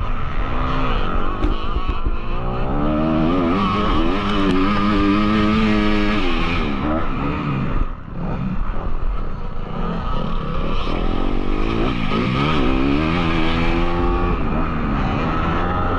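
Dirt bike engine heard from on the bike, revving hard with its pitch climbing through the gears and dropping at each shift. The throttle shuts briefly about halfway through, then the engine pulls up through the revs again.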